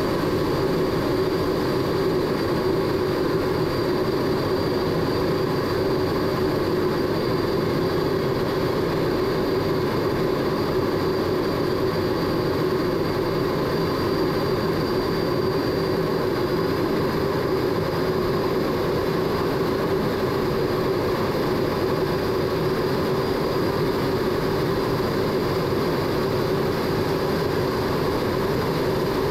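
MiG-17 jet engine running steadily in flight, heard as the cockpit recording, with a constant hum and a faint high whine.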